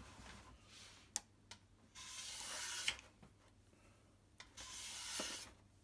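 Sandpaper rubbed along the edge of an oak drawer to smooth it: two long strokes, each about a second, after a couple of light clicks.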